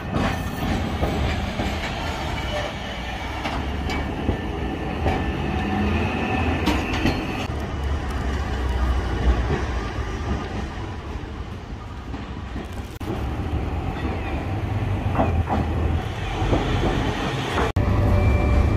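Hakodate city streetcars running on street track, the tram's motors and steel wheels on the rails as one passes and another approaches. Near the end it is heard from inside a moving tram, louder and steadier.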